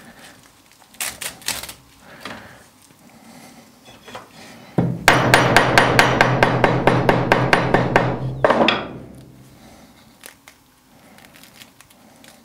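A hammer rapidly pounding beef sinew on a small metal anvil, about five blows a second for nearly four seconds, starting about five seconds in: the sinew is being beaten to soften it so it splits into fibres. Before that, faint crackles of sinew fibres being torn apart by hand.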